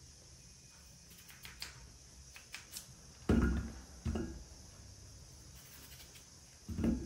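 Whole peeled potatoes dropped one at a time into an empty metal pot: three dull thuds, about three seconds in, a second later, and near the end.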